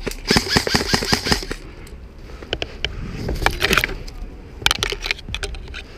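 Airsoft electric rifles firing rapid bursts, a fast string of sharp clicks for about the first second and a half, then two shorter bursts later on.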